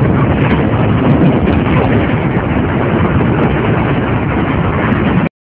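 Film sound effects of an airliner crash and explosions: a loud, dense, continuous rumble, heaviest in the bass, that cuts off abruptly about five seconds in.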